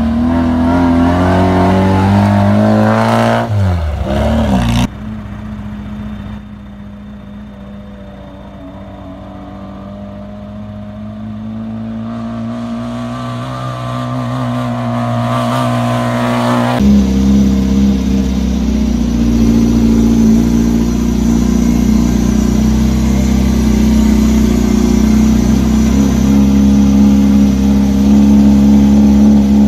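Engine of a small off-road rally vehicle revving and rising in pitch as it drives close by on a dirt track, breaking off abruptly about five seconds in. Then the engine is heard more distantly, growing steadily louder as the vehicle approaches. From about seventeen seconds in, the engine runs loud and steady as heard from on board.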